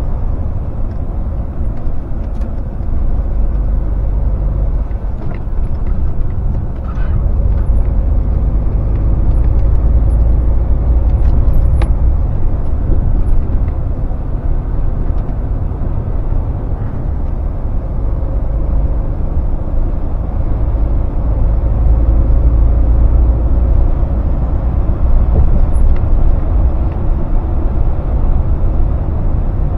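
A Scania S500 lorry heard from inside its cab while cruising: a steady low engine drone with tyre and road rumble, growing a little louder about seven seconds in, with a few faint clicks.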